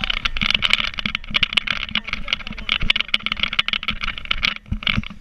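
Dense rapid crackling and rushing noise of water spray and wind hitting an inflatable towed water sofa at speed.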